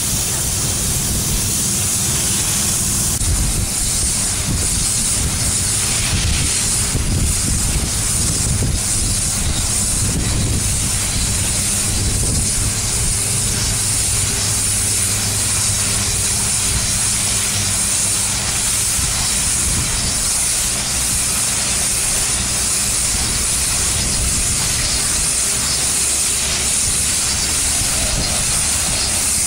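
Spray foam gun hissing steadily as it sprays polyurethane foam, with a low steady hum underneath.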